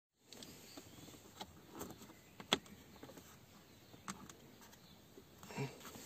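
Faint, scattered clicks and light knocks of hands handling parts and wiring at a car's steering column, with one sharper click about two and a half seconds in and a short cluster of knocks near the end.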